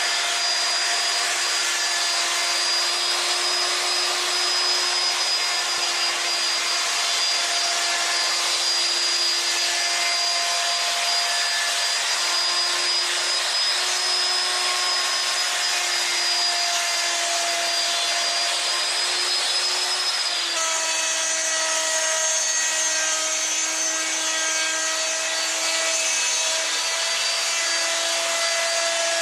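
Handheld electric router running steadily with a high whine as its 1.5 cm bit cuts a groove along a curved wooden table rail. Its pitch drops slightly about twenty seconds in.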